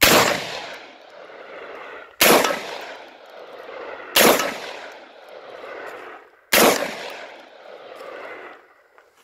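UTAS XTR-12 12-gauge semi-automatic shotgun fired four times in succession, about two seconds apart, each shot echoing and fading over a second or two.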